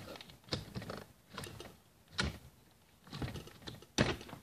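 Fingers poking and pressing a lump of slime on a plastic lid, giving short soft pops about once a second, with a sharper knock near the end.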